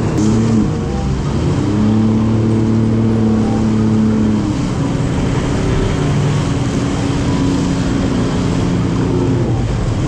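Jet ski engine running at speed, its pitch stepping up and down as the throttle changes, over the steady rush of spray and water from the hull.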